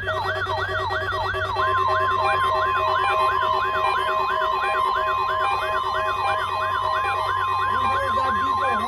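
Several weather alert radios sounding their siren alarms together, triggered by a NOAA Weather Radio required weekly test: fast overlapping wails, about three a second, at different pitches, with a pulsing lower tone under them and a steady high tone joining about a second and a half in.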